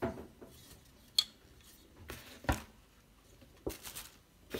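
Handling noise from a plastic LED work light and its stand: a few sharp clicks and knocks of plastic and metal parts, unevenly spaced, the loudest about halfway through.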